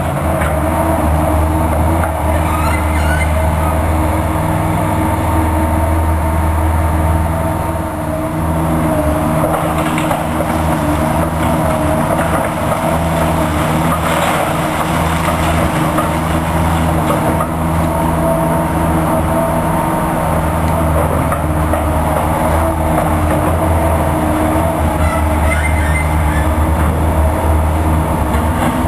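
Bobcat 751 skid steer loader's diesel engine running steadily at working speed while the loader works, with a few short knocks about ten and fourteen seconds in.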